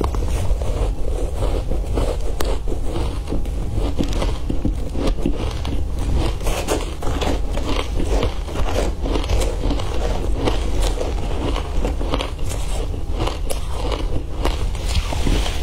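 Matcha-dusted shaved ice crunched between the teeth, a dense run of crackling crunches, along with a metal spoon scraping and digging through the ice in the bowl. A steady low hum runs underneath.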